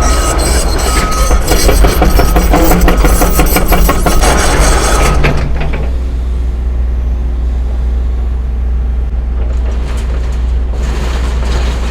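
CAT 312 excavator's diesel engine running, with dense clanking and rattling and an on-off high tone for about the first five seconds, then settling to a steadier engine sound.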